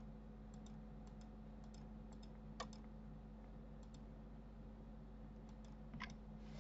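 Faint clicks of a computer mouse's left button, each heard as a quick press-and-release pair, repeated about eight times at an uneven pace. The mouse is clicked once per face to add mesh faces to a selection. A low steady hum runs underneath.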